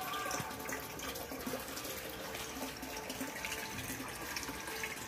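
Water running steadily into a garden goldfish pond, an even trickling wash of sound.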